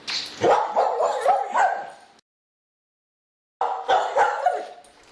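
A dog barking repeatedly in short barks, in two runs split by a sudden dropout of about a second and a half.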